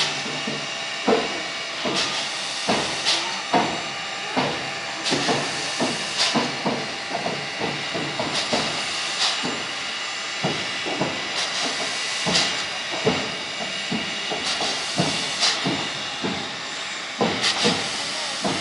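Class 52 steam locomotive standing with steam hissing, while it is turned on a turntable, with irregular sharp clanks and knocks, about one or two a second.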